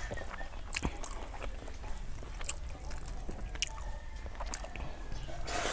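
Eating rice and fish curry by hand from a stainless-steel plate: fingers mixing and scraping the food against the metal, with scattered small clicks, and chewing.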